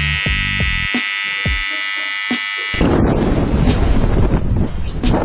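Electric hair clipper buzzing steadily with a high whine, cut off abruptly about three seconds in. Wind then blasts across the microphone on a slingshot ride, a rushing, rumbling noise.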